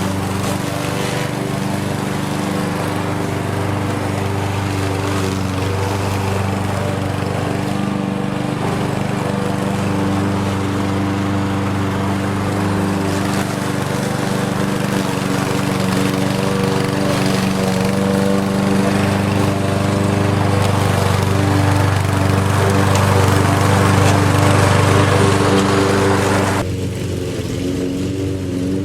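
Engine-powered lawn mower running steadily, its pitch holding even. It grows gradually louder, then about two seconds before the end the higher part of the sound drops away suddenly, leaving the lower engine note.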